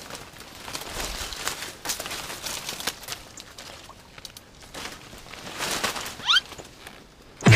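Irregular splashing and crackling at the water's edge: a tilapia shot with a slingshot arrow thrashing at the surface on the arrow's line. A short rising chirp comes about six seconds in, and a sharp knock sounds right at the end.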